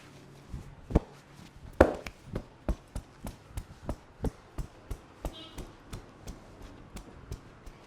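Percussive hand strikes of an Indian head massage: sharp slaps and taps on the head, about three a second, starting about half a second in and keeping an even rhythm, with the hardest strikes early on.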